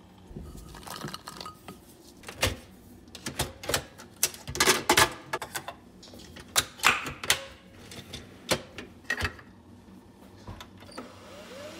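Irregular clicks and light knocks, some in quick clusters and the loudest about five seconds in, like small hard objects being handled.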